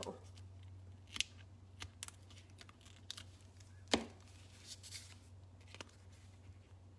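Paper and cardstock handled on a tabletop: scattered taps, clicks and short rustles, the loudest about four seconds in, over a steady low hum.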